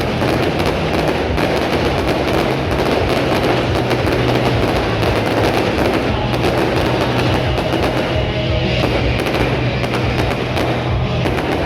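Rapid, continuous crackling and popping of fireworks, heard together with loud rock music.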